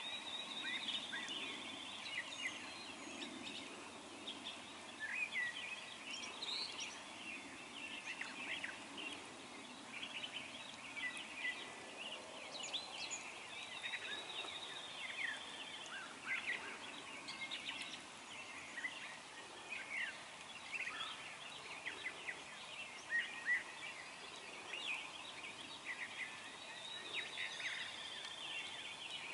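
Wild turkey gobbling, over many songbirds chirping and trilling.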